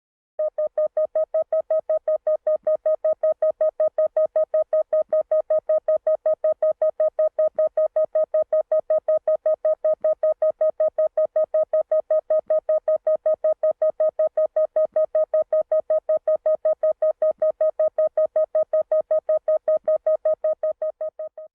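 Synthesized sonar blip sound effect: a rapid, even train of short, identical mid-pitched beeps, several a second, fading out near the end.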